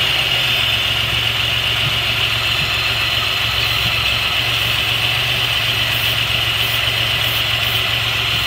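1990 Chevrolet Beretta's 3.1-litre V6 idling steadily with a very rough idle, with a steady high hiss over it. The rough idle comes from a vacuum leak, later traced to a bad intake manifold gasket.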